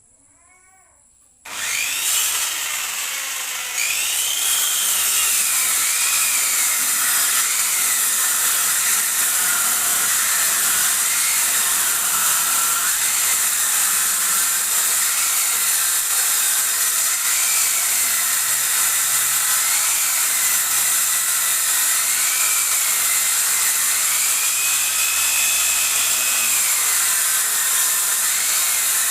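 Circular saw machine ripping a wooden plank lengthwise, cutting in suddenly about a second and a half in and then running loud and steady. Its whine sags and recovers over and over as the blade takes the wood. A cat meows faintly just before the saw starts.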